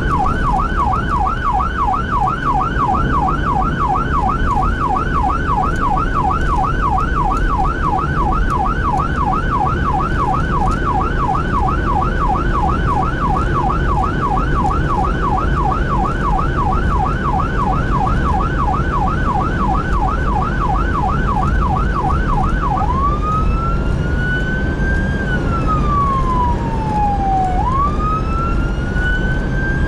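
Fire engine's electronic siren sounding a fast yelp, about three to four sweeps a second, over a steady low rumble of engine and road noise. Near the end it switches to a slow wail that rises and falls over a few seconds.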